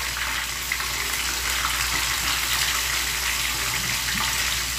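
Fish roe frying in hot oil in a pan, a steady sizzle with a few small crackles as the oil spatters.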